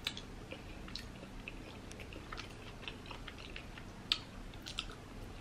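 A person chewing a mouthful of mac and cheese close to the microphone: soft, wet mouth clicks, with a sharper click at the start and another about four seconds in.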